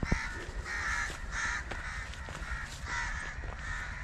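Crows cawing over and over, about two harsh calls a second, over a low steady rumble, with one sharp click just after the start.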